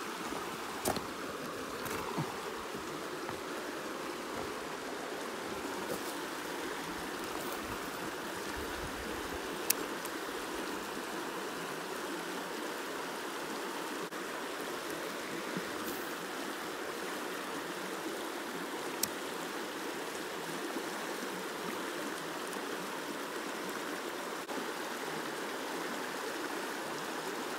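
Mountain stream water running over rocks: a steady, even rush, with a few sharp clicks now and then.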